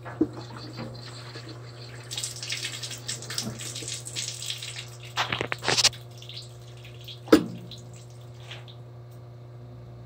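Water rushing out of a steam boiler's sightglass drain valve for a few seconds, with a few sharp clicks from the valve and fittings, over a steady low hum. The gauge glass is being drained to check whether the glass is really flooded or its bottom fitting is clogged.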